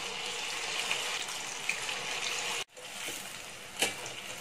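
Batter-coated cauliflower florets sizzling in hot oil in a kadhai, a steady hiss of deep-frying during the first half-fry that sets the coating. The sizzle breaks off for an instant just past halfway, and a single sharp click comes near the end.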